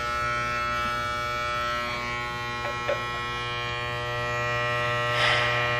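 Corded electric hair clippers running with a steady buzz as they shave off a man's beard, with a brief hiss about five seconds in.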